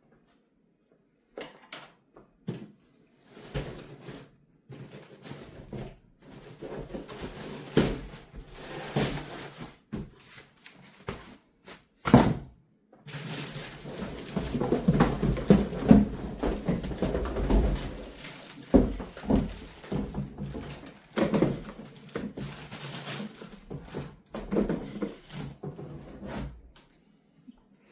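Irregular knocks and thuds with rustling handling noise between them, as objects are moved and set down, busiest in the middle with one sharp knock about twelve seconds in.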